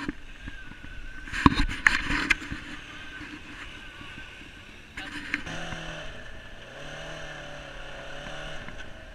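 Off-road engines running over sand: rough noise with loud bursts for the first few seconds, then from about five seconds in an engine note that rises and falls as the machine drives.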